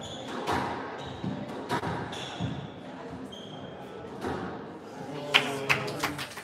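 Squash rally: the rubber ball struck by rackets and smacking off the court walls, a sharp knock every half second or so that echoes around the hall, with brief shoe squeaks on the hardwood floor. Near the end comes a quick cluster of sharper clicks.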